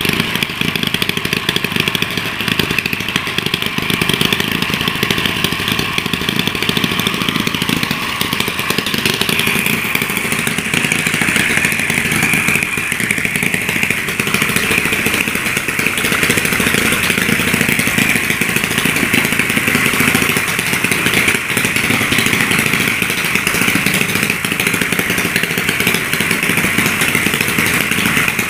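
Small handmade petrol engine running steadily while driving its homemade cart along the road under the cart's own weight. Its note grows sharper and brighter about ten seconds in.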